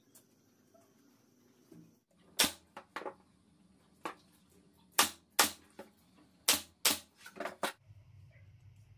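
Pneumatic brad nailer firing a quick run of about a dozen sharp shots, fastening wooden rails of a plywood jig.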